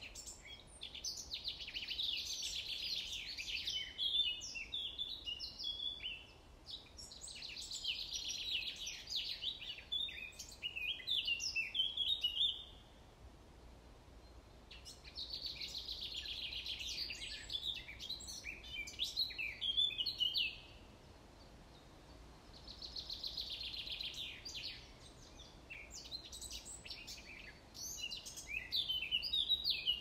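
A songbird singing a loud, fast trilling song, about five phrases of several seconds each with short pauses between, over faint steady outdoor background noise.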